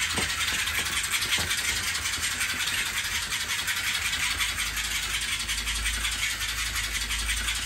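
Wing-flapping toy bird in flight, its wings beating fast with a steady whirring flutter.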